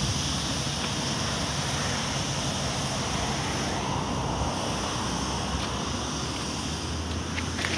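Steady street ambience: a hiss of distant road traffic with some wind on the microphone, and a few faint ticks.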